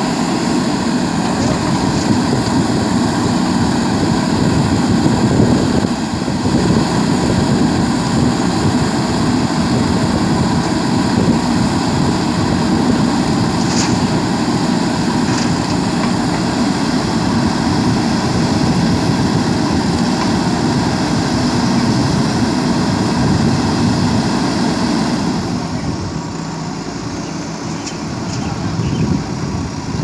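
Diesel engines of JCB 3DX backhoe loaders running steadily under load as they dig and load soil, with a couple of faint knocks about halfway through. The engine noise eases off for a few seconds near the end.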